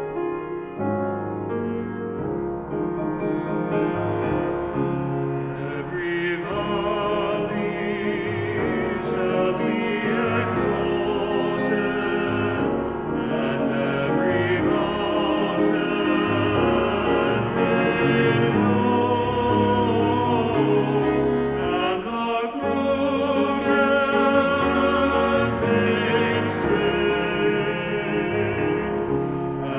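Church anthem for piano and a small mixed-voice vocal ensemble: the piano plays alone at first, then the voices come in about six seconds in, singing sustained, wavering lines over the piano.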